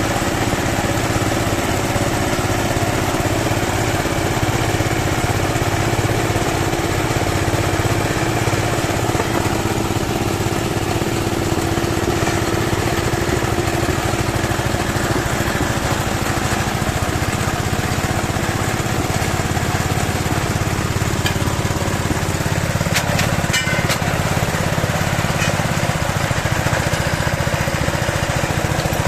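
Small petrol water-pump engine running steadily, driving a well-drilling rig through a Suzuki Carry gearbox. A few sharp ticks come through about three-quarters of the way in.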